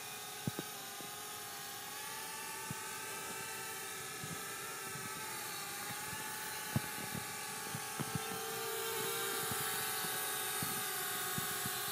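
Small toy quadcopter's motors and propellers whining steadily in flight, the pitch wavering slightly as it manoeuvres and a little louder in the second half, with a few faint clicks.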